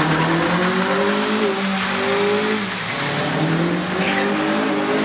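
Car engine held at high revs, wavering, dipping briefly about halfway through and climbing again, with its tyres spinning and squealing: a burnout.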